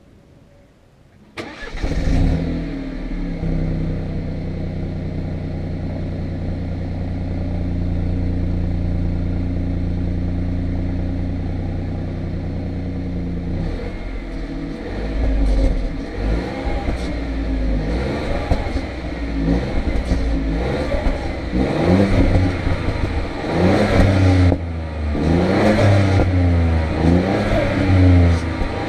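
2017 BMW F20 118i's B38 1.5-litre turbocharged three-cylinder engine, on its stock exhaust and fitted with a Pipercross panel air filter. It starts about a second in with a brief flare of revs and idles steadily. From about halfway it is revved repeatedly in short blips that rise and fall.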